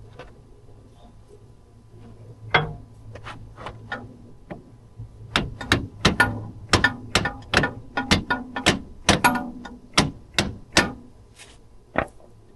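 A hammer striking metal: a few light taps, then a run of about fifteen sharp, ringing blows at two or three a second, and one last blow near the end.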